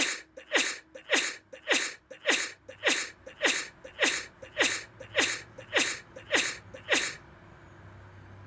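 A rapid run of about a dozen sneezes, about two a second, each a short burst with a falling voice. They stop about seven seconds in, leaving a faint low hum.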